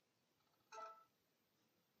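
Near silence, broken about three-quarters of a second in by one short, faint pitched tone from the Coolpad Canvas phone as its camera takes a night-mode photo.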